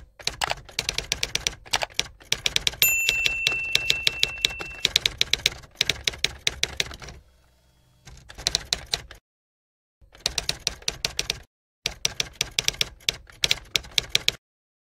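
Typewriter sound effect: runs of rapid keystroke clicks broken by short pauses, with a bell ding about three seconds in that rings for a couple of seconds.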